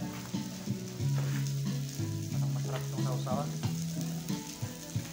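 Food sizzling on a grill plate over a portable tabletop gas stove: a steady frying hiss. Music with low notes changing in steps plays underneath.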